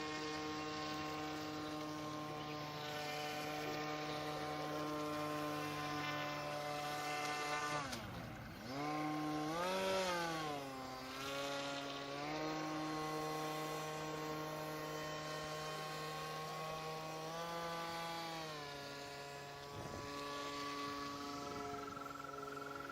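HobbyKing Swamp Dawg RC airboat's electric motor and propeller running with a steady whine, its pitch dropping and then surging up and back down about eight to twelve seconds in, with smaller speed changes later as the throttle is worked.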